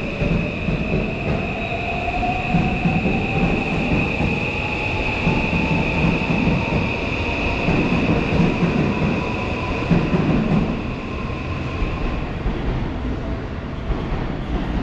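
Seibu 001 series Laview electric train accelerating out of the platform. The motor whine rises steadily in pitch over about twelve seconds, over a steady high tone and the low rumble of wheels on rail, then dies away as the last car clears.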